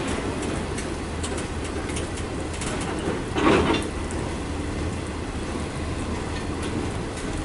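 Intermodal freight train cars rolling past: a steady rumble with scattered wheel clicks over rail joints. A brief louder noise stands out about three and a half seconds in.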